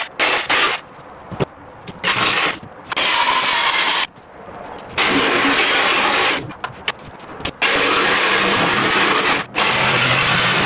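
Corded DeWalt jigsaw cutting through plywood in about six short runs, stopping and starting between them.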